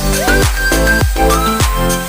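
Background electronic dance music with a steady kick-drum beat and a synth melody with sliding notes.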